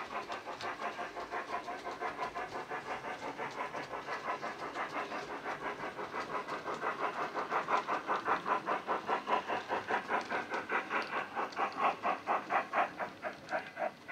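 Steam-locomotive chuffing played by the DCC sound decoder in a Hornby 9F model locomotive through its small tender speaker: a steady beat of about four chuffs a second. The chuffs grow louder from about halfway through as the model approaches.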